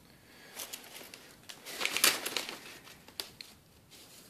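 Paper sheets rustling and crinkling as they are handled, in several bursts, loudest about two seconds in.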